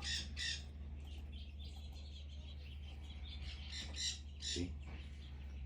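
Red-crowned amazons (Mexican red-headed parrots) squawking: two harsh calls at the start, then another burst of several squawks about three and a half seconds in.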